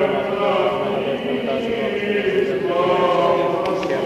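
Byzantine chant of the Greek Orthodox Divine Liturgy: voices chanting long held notes that shift slowly in pitch, without a break.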